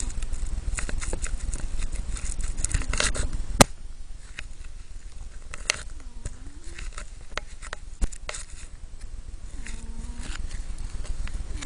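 A cat snoring in its sleep: a rattly, crackling snore with each breath, coming about every three to four seconds. There is a sharp click about three and a half seconds in.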